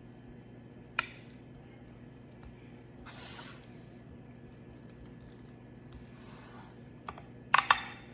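Kitchen utensil clicking and scraping against a casserole dish as shredded chicken is spread into a layer: a sharp click about a second in, a soft brief swish around three seconds, and a louder pair of clinks near the end, over a faint steady hum.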